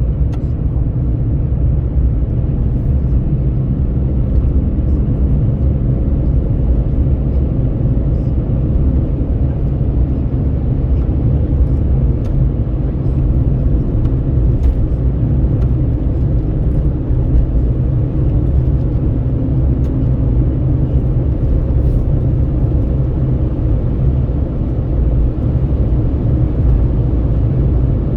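Steady low rumble of road and engine noise from a vehicle cruising along a highway, with wind at the window, holding even throughout.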